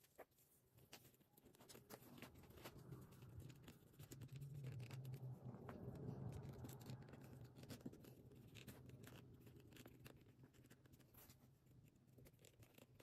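Faint scratching and rubbing of leather being handled, with many small clicks, as a long-post rivet is pushed through a leather strap attachment folded around a metal ring. The rubbing grows louder for a few seconds in the middle.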